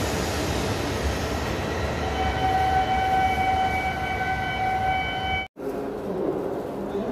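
Shinkansen running at speed, heard from inside the passenger cabin as a steady rushing rumble. About two seconds in, a steady high tone with overtones joins it and holds for about three seconds. The sound then cuts out abruptly for a moment, and the rumble resumes a little quieter.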